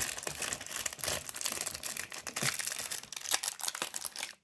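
Crinkling and rustling of a small plastic parts bag being handled, a dense run of irregular crackles.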